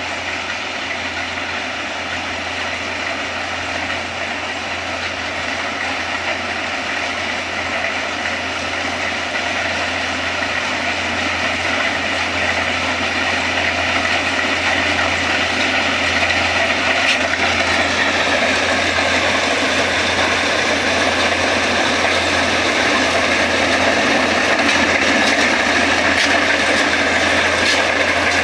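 Kubota rice combine harvester running steadily, its engine hum under the clatter of the harvesting machinery, growing gradually louder, with a whine that drops a little in pitch about two-thirds of the way through.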